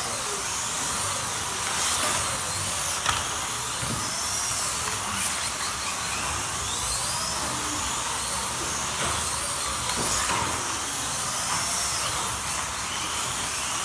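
Several slot cars' small electric motors whining around the track, their pitch rising and falling over and over as they accelerate and brake, with a sharp click about three seconds in.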